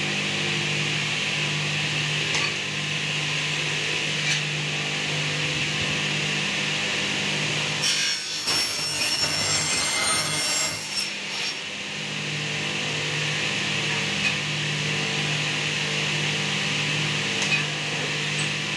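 An electric circular saw runs with a steady hum. About eight seconds in, its blade cuts through a piece of aluminium profile for roughly three seconds, a dense cutting noise. A few short clicks come from the metal pieces being handled.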